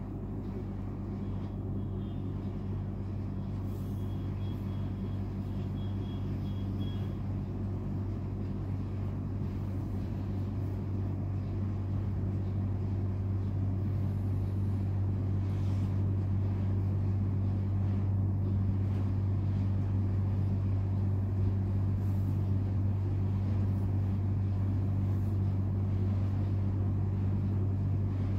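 Steady low hum, like a motor running, that creeps up slightly in level.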